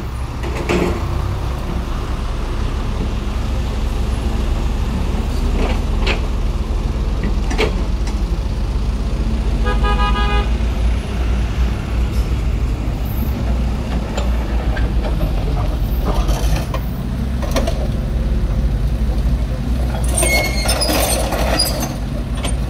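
Diesel engines of dump trucks and construction machines running with a steady deep rumble, a vehicle horn tooting briefly about ten seconds in, and scattered knocks.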